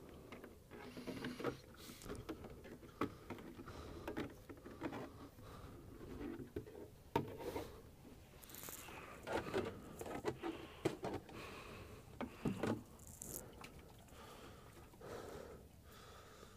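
Black Labrador puppy chewing and mouthing a hollow plastic watering can: irregular gnawing, scraping and clicks of teeth on plastic, with a few louder knocks through the middle.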